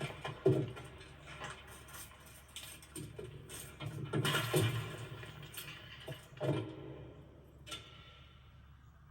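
Animated-film sound effects: a scattered run of thumps, scrapes and rustles, with louder hits about half a second in, around four and a half seconds and six and a half seconds, fading near the end.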